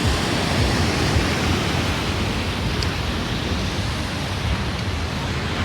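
Sea surf washing onto the beach, a steady rush of noise, with wind buffeting the microphone.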